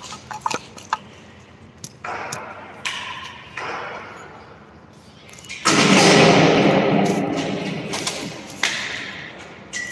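Scattered clicks and knocks of hardware being handled during assembly of a manual rotary screen printing press. Past the middle comes a louder burst of noise that fades over about three seconds.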